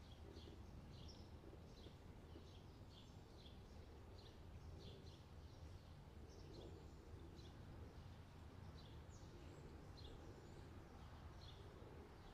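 Near silence: a low steady hum, with a small bird's faint high chirps repeating about twice a second.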